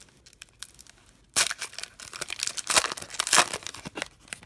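Foil trading-card pack wrapper being ripped open and crinkled by hand. It starts suddenly about a second and a half in, after a few faint ticks, and goes on as a dense crackling of foil.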